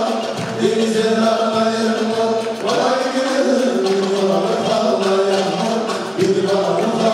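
Live Turkish folk ensemble: bağlamas and violins playing a melody together with men's voices singing in unison.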